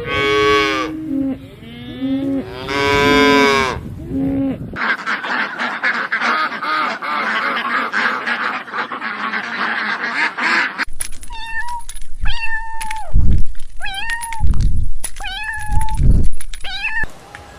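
Farm animal calls in three cut-together clips. First come loud, drawn-out pitched calls that step in pitch. About five seconds in, a dense chorus of many overlapping animal calls takes over. From about eleven seconds in there are around seven short separate calls, each about half a second long.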